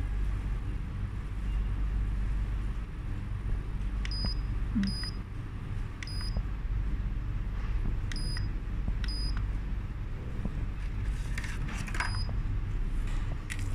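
Six short, high electronic beeps from the ultrasonic cavitation slimming massager as its control buttons are pressed, spread unevenly through the stretch, over a steady low hum. A few faint handling clicks come near the end.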